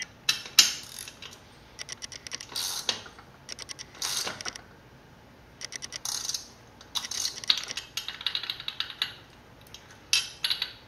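Ratchet wrench clicking in short bursts of rapid clicks, with small metal clinks, as a spark plug is turned into the new cylinder head of a motorized-bicycle two-stroke engine.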